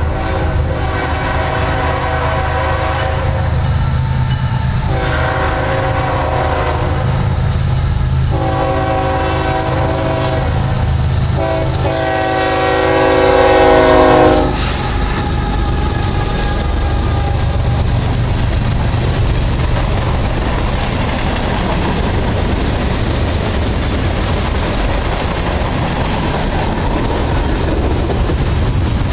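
Horn of a Norfolk Southern GE ES44AC diesel locomotive sounding a series of long blasts, the last and loudest ending about 14 seconds in as the locomotives pass with the low drone of their diesel engines. After that the freight train's boxcars and double-stack container cars roll past with a steady noise of wheels on rail.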